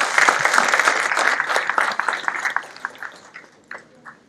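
Audience applauding, a dense patter of claps that thins out about three seconds in and ends with a few last scattered claps.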